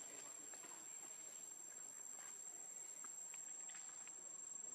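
Forest insects keeping up a steady, high-pitched shrill, with a few faint rustles and ticks now and then.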